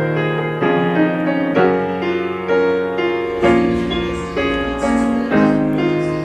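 Background music: a slow piece of sustained pitched notes and chords, a new chord struck about once a second and fading away.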